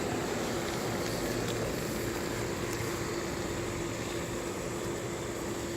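Electric blower fan of an inflatable Halloween lawn decoration running steadily with a constant hum, inflating the decoration.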